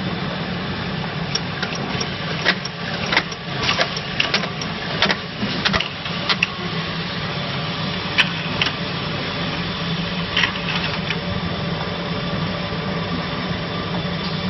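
Cap-feeding section of an automatic motor oil capping machine running: a steady machine hum with irregular sharp clicks and clacks, thickest in the first half, as black screw caps feed down the cap chute.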